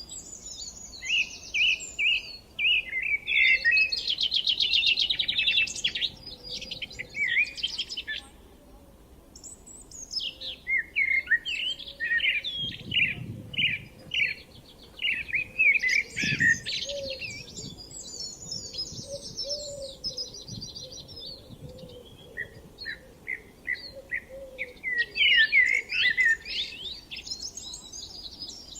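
Songbirds singing in spring, phrase after phrase of quick chirps and rapid trills, with brief pauses between bursts.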